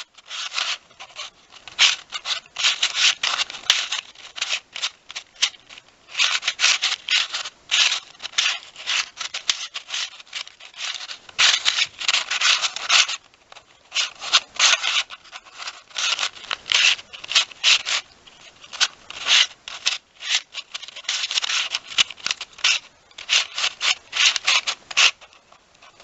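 A 3D-printed plastic Square-1 speed puzzle being turned fast during a solve: rapid, irregular clicking and scraping as its layers are twisted and sliced, with a brief pause about halfway.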